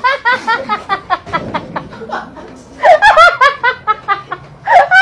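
A person laughing hard in quick, high-pitched ha-ha-ha runs, breaking off for about a second in the middle and starting again.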